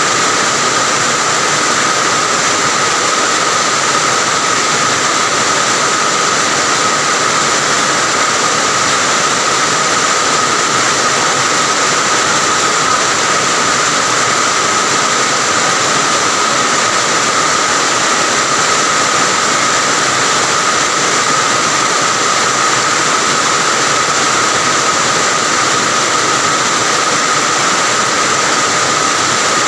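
Rain falling steadily, an even unbroken hiss with a faint constant high tone running through it.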